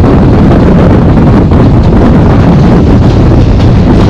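Heavy wind buffeting a microphone held out of a moving passenger train, over the steady running rumble of the coaches on the track.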